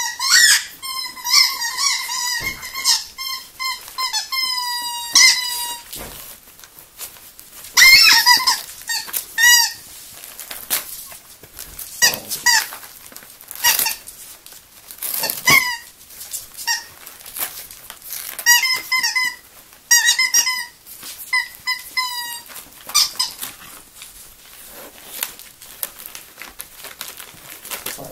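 A Yorkshire terrier whining in repeated runs of short, wavering high notes while nosing at a wrapped present. Brief scuffs and rustles of wrapping paper come between the runs.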